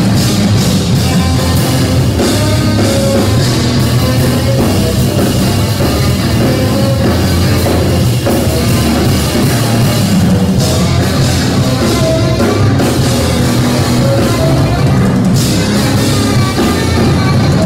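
Live jazz trio playing loudly and densely: tenor saxophone over a busy drum kit and an amplified electric string instrument.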